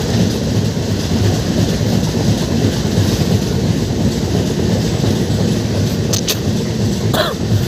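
Express passenger train coach running at speed: the steady loud noise of wheels on rails and the coach rattling, with a few brief clicks near the end.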